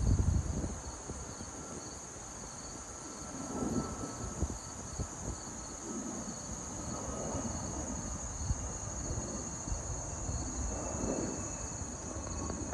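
Distant jet airliner passing high overhead: a low rumble that swells and eases, with faint engine whines slowly falling in pitch. A steady high chorus of insects runs over it, and there is a brief low bump right at the start.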